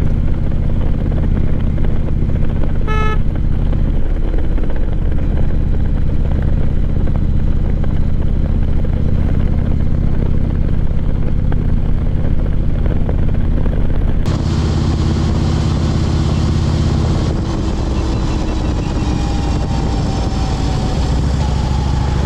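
Harley-Davidson Street Glide Ultra's V-twin engine running on the road, with a short high tone about three seconds in. About fourteen seconds in the sound turns suddenly brighter and hissier, and a few seconds later the engine note drops and changes.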